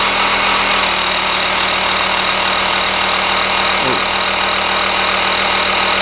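DBPower 12-volt portable digital tyre inflator's electric air compressor running steadily with a constant hum as it pumps up a car tyre, then cutting off suddenly at the end.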